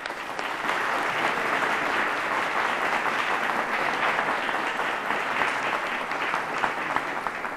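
An audience applauding: many people clapping in a dense, steady patter that starts all at once and eases off slightly near the end.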